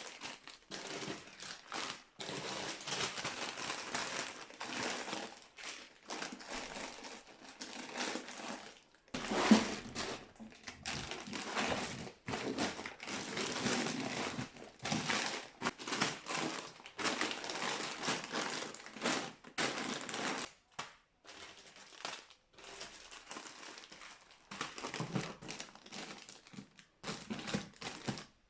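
Crinkling and rustling of packaging being handled, in irregular stretches with short pauses and one sharper knock about nine seconds in.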